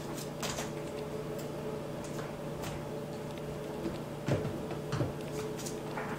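Small goat kids' hooves clicking and tapping on a hardwood floor as they scuffle, with two louder knocks about two-thirds of the way through. A steady low hum runs underneath.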